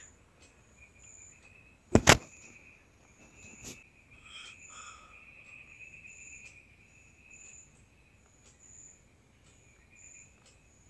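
A single sharp, loud knock about two seconds in and a softer one near four seconds, over a faint, high chirping that repeats steadily like insects.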